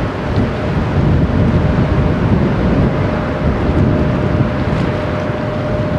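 Wind buffeting the microphone over the low, steady drone of a passing inland motor tanker's diesel engine, with a faint steady hum running through it.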